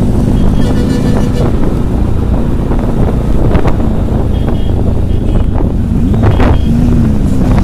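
Motorcycle engine running at road speed, with wind buffeting the microphone. Two short high beeps come about four and six seconds in, and the engine note dips and climbs again near the end.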